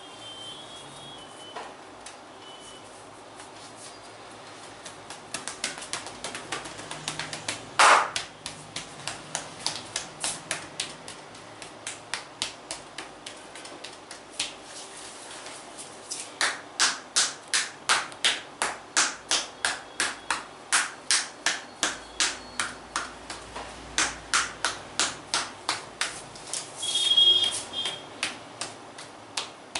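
Hand-percussion back massage: hands slapping and chopping on a back in a rhythmic run of sharp claps, about two to three a second, with one much louder slap about eight seconds in.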